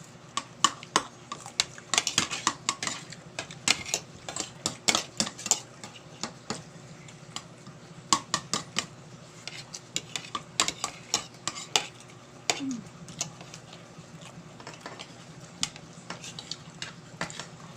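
Cutlery clinking and scraping against a plate during eating, in many short irregular clicks.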